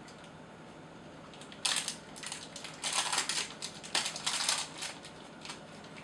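Foil-lined protein bar wrapper crinkling in a series of bursts as it is peeled back from the bar, lasting about three seconds from near two seconds in.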